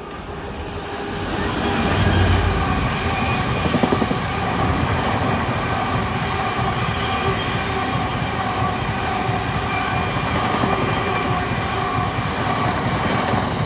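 Freight train passing close by: the locomotive goes by about two seconds in, the loudest moment, then a long rake of wagons rolls past, a steady rumble of wheels with several steady ringing tones over it.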